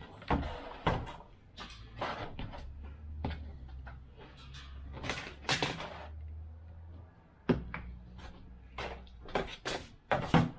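Irregular knocks, clicks and rustles of parts being handled on a workbench, with a low steady hum for a few seconds in the middle.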